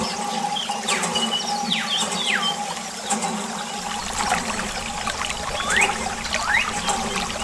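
Water trickling and splashing from a miniature hand pump as its lever is worked by hand, with a few short squeaks.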